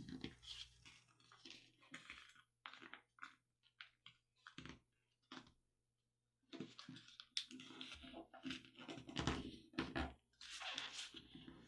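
Faint rustling and creasing of a sheet of A4 paper folded by hand against a cutting mat: scattered short taps and scrapes, busier in the second half with a few low thumps as the fold is pressed down.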